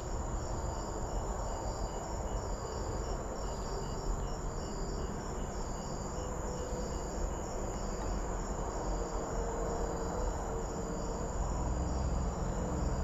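Crickets chirping in a steady pulsing rhythm, about two chirps a second, over a low rumble of road traffic on nearby roads.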